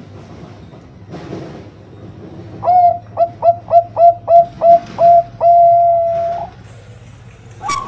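Zebra dove (perkutut, Thai 'Bangkok' song line) cooing: a quick run of about nine short, even coos, then one long drawn-out final note. A sharp click comes near the end.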